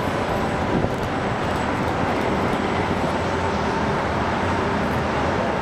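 NJ Transit ALP-45DP dual-mode locomotive pushing a train of bilevel coaches away, a steady rumble with a faint steady tone through it, mixed with road traffic noise.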